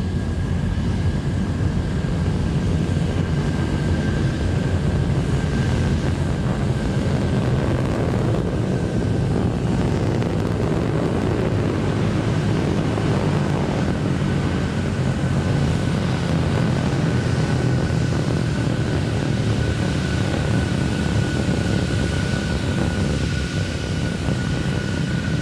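Terran 1 rocket's first stage, its nine 3D-printed Aeon 1 methane-oxygen engines, firing during ascent: a steady, deep rumble. A faint steady high tone sits above it.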